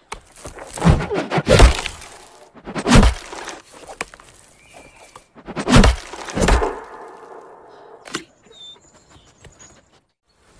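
A tomahawk thrown into a tree trunk, striking the wood with about five loud thunks and cracks over the first seven seconds, then a single sharp click about eight seconds in.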